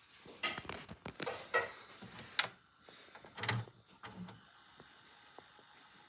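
Clattering handling noise: a flurry of rattles and clicks, then a few sharp knocks near the middle, the heaviest with a low thump, after which only faint ticks remain.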